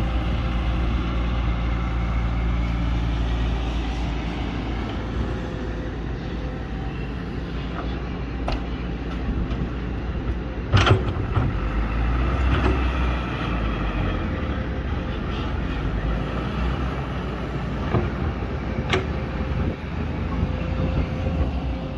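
Excavator engine running steadily, with a few sharp knocks from the machine at work; the loudest comes about eleven seconds in.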